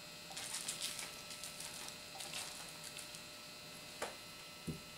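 Coarse black pepper shaken from a small glass container onto fried potato wedges on paper towel: a faint dry pattering that lasts about three seconds. Two light knocks follow near the end as glassware is handled on the table.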